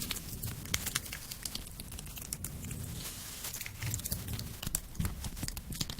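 Knife slicing through clear jelly cubes, with an irregular run of crisp, crackly clicks and soft squishy thuds.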